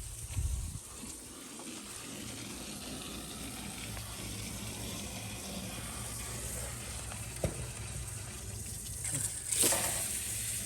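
2000 Trane XL1400 3-ton central air conditioner's outdoor unit running: a steady low hum under an airy rush. There is a single sharp tick about seven and a half seconds in and a brief louder rush of noise near the end.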